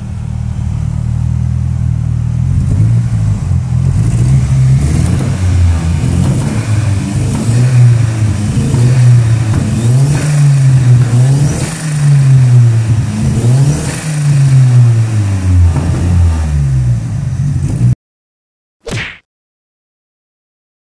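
Nissan SR20DET turbocharged 2.0-litre four-cylinder, freshly swapped into a Datsun B110, running on its first start: it idles, then is revved up and down repeatedly. The engine sound cuts off suddenly about eighteen seconds in, and a short whoosh follows near the end.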